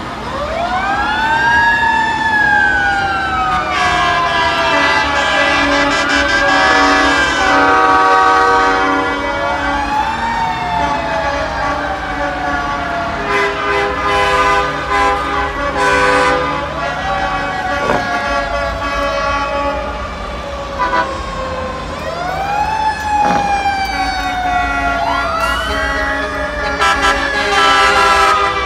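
Sirens on parading trucks, wailing over and over: each one rises quickly in pitch and then falls slowly, and several overlap. Long blasts of truck air horns and the low rumble of passing truck engines sound under them.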